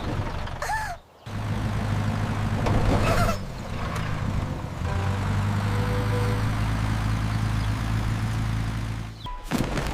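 A steady low engine-like hum, starting about a second in after a brief silence and stopping shortly before the end, with a few short gliding calls near the start.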